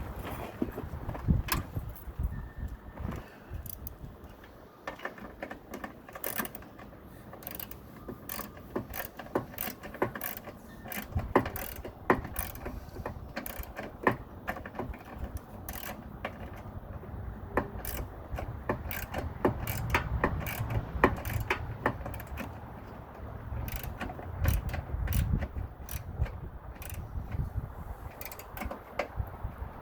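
Hand socket ratchet on an extension clicking in short, irregular runs as a bolt is turned, with metal tool clinks in between.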